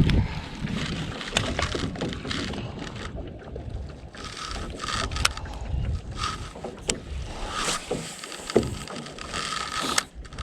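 Small fishing boat on the water: a low rumble of wind and water against the hull, with scattered sharp clicks and knocks from tackle being handled.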